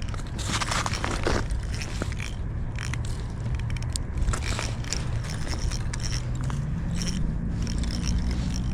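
Irregular scraping and crackling with scattered sharp clicks, over a steady low rumble.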